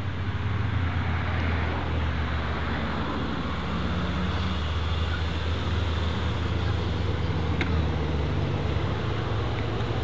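The twin-turbo V8 of a 1300 hp GAD Motors-tuned Mercedes-AMG E63 S runs at low revs as the car rolls slowly, with a steady low rumble and no revving.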